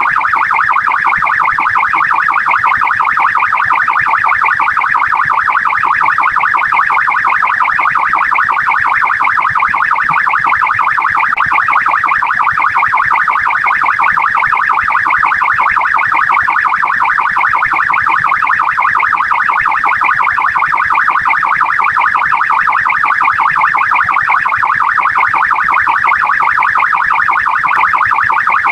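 Australian police car siren sounding continuously in its fast, rapidly rising-and-falling responding mode, loud and unbroken.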